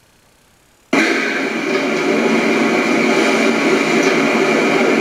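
Hot-water pressure washer running: a steady, loud machine noise that starts suddenly about a second in and holds even, with a constant whine over it.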